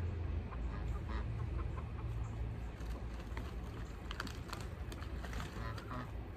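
Backyard poultry giving short clucking calls several times, in small clusters about a second in and again near the end, over a steady low hum.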